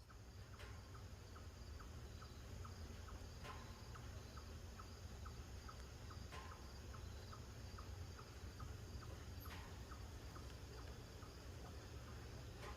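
Faint outdoor insect chirping, a regular series of soft ticks about two or three a second, over a low steady rumble.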